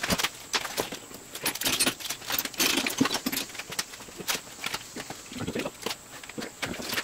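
Metal chain clinking and rattling in irregular handfuls as double-row roller timing chains are handled and fitted around their sprockets on a Jaguar 2.4-litre engine's timing assembly.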